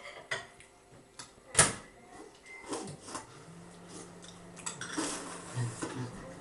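Metal spoons clinking and scraping in cereal bowls, with one sharp clink about one and a half seconds in. A low steady hum sets in about halfway through.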